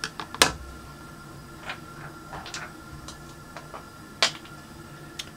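Light clicks and taps of a small rhinestone-covered lip gloss case being set down on a mirrored glass tray. There is a sharp click about half a second in, a few fainter taps, and another sharp click about four seconds in.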